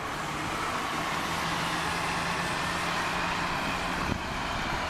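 Double-decker city bus driving past, a steady low engine hum over a broad rush of tyre and road noise. A single sharp click sounds about four seconds in.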